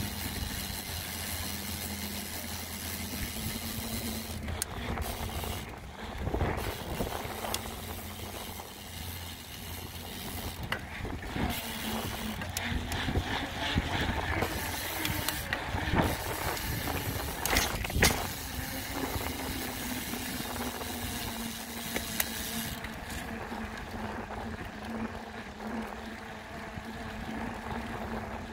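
Mountain bike on the move, recorded from a handlebar-mounted phone: a steady rush of tyre and wind noise with a low hum, broken by several sharp knocks and rattles.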